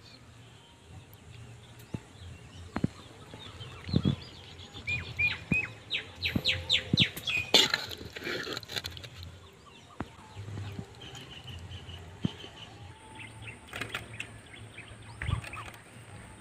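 A steel ladle knocking and scraping in a metal pot of thick curry, several sharp knocks about 4 and 7.5 seconds in. Birds chirp in a quick run of short high notes between them.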